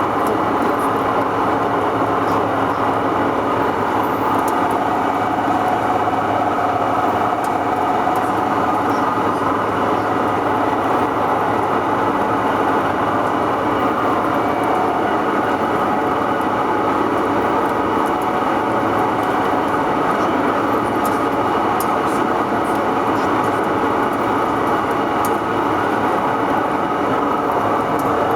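Heavy CNC roll-turning lathe running while machining a rolling-mill roll: a constant mechanical drone with several steady tones and faint scattered ticks.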